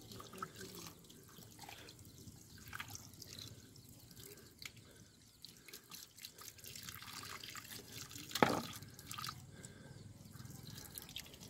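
A thin stream of tap water running and splashing onto a wet stone slab while hands rub and rinse a gutted chicken under it, with small dripping and wet handling sounds. One louder sharp sound comes about eight seconds in.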